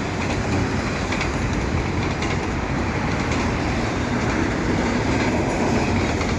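Double-stack container cars of a fast freight train rolling past: steady noise of steel wheels on rail with faint clicks.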